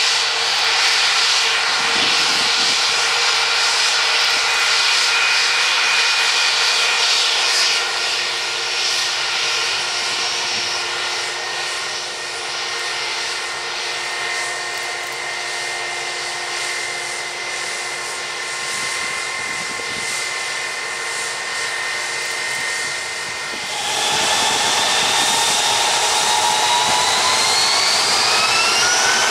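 Jet airliner's turbofan engines whining steadily at low power. About four-fifths of the way in the sound suddenly gets louder and the whine rises in pitch as the engines spool up, typical of thrust being set for a takeoff roll.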